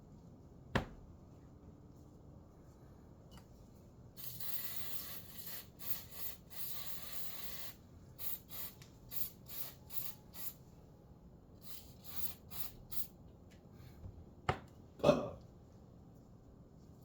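Hissing spray: one long spray of about three and a half seconds, then about a dozen short bursts. There is a single click about a second in and two sharp knocks near the end, the second one the loudest.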